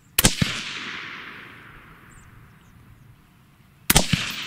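Two suppressed rifle shots from an AR-15 in .223 Wylde fitted with a Liberty Infiniti X suppressor, about four seconds apart. Each is a sharp crack with a fainter crack just after it and a tail that fades away over a second or two.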